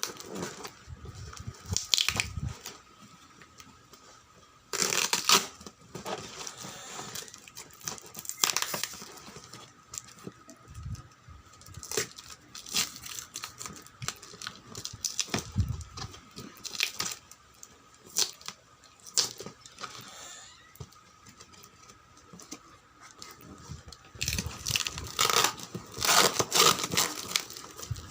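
A gift package being torn open and crumpled by hand: irregular rips and crinkles of the wrapping, with a denser run of tearing near the end.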